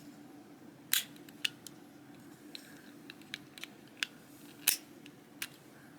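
Mechanical keyboard switches being pressed on a keyboard switch tester: irregular sharp plastic clicks, the loudest about a second in and again near the end.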